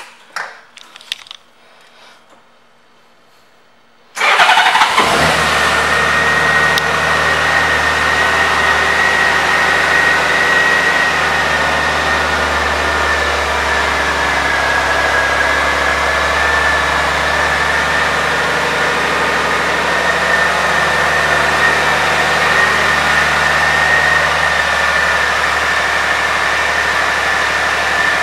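A 2001 Honda Gold Wing GL1800's flat-six engine. A few clicks come from the ignition key being turned, then about four seconds in the engine starts with a brief crank and settles into a steady idle. A steady high whine runs over the engine note.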